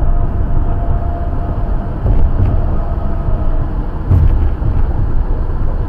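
Steady low rumble of road and traffic noise heard inside a car on a freeway, with a brief louder swell about four seconds in.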